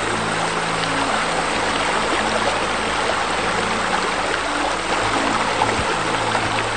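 Steady splashing of water falling from a pool rain bar into the pool, under soft background music with long held low notes.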